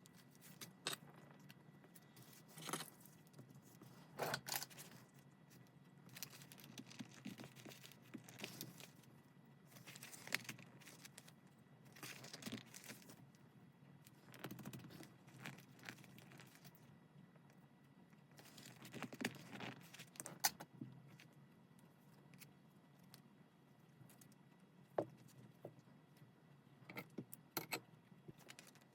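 Paper and stationery being handled: irregular rustles, slides and light taps of paper.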